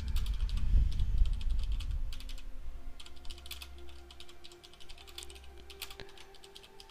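Computer keyboard typing: quick runs of key clicks with short pauses between them. A low rumble underneath in the first couple of seconds fades away.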